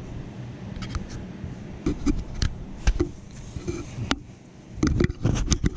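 Scattered clicks and light knocks of objects being handled on a workbench, with a denser run of knocks near the end, over a low steady hum.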